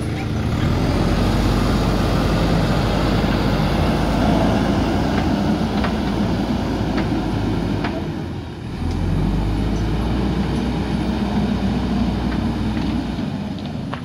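JCB 3DX backhoe loader's diesel engine running steadily under load as the machine pushes and levels soil, with a few light knocks. The engine sound dips briefly about eight seconds in and then comes back.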